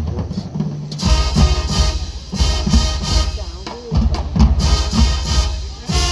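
Marching band playing: a brass section with sousaphones and trumpets over bass drum and snare, with strong bass drum hits throughout. The full brass comes in about a second in.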